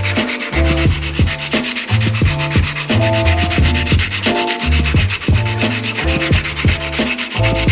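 Fine sandpaper rubbed by hand over a polished steel axe head, a fast, even rasping, under background music with deep kick drums and a bass line.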